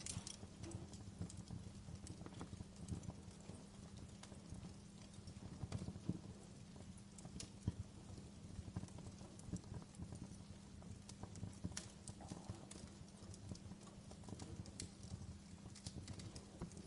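Wood fire burning in a fireplace, crackling with irregular sharp pops over a low steady rumble of the flames.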